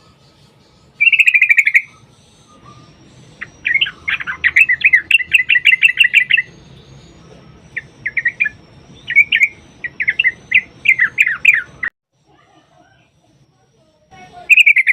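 Yellow-vented bulbul (trucukan) singing in rapid, bubbling chattering runs: a short burst about a second in, then long fast trills with gaps. The song stops abruptly about three seconds before the end and starts again with a burst right at the end.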